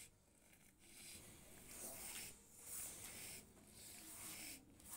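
Near silence, with a faint breathy hiss swelling and fading about once a second: the rapid, laboured breathing of a calf with breathing difficulty, typical of pneumonia.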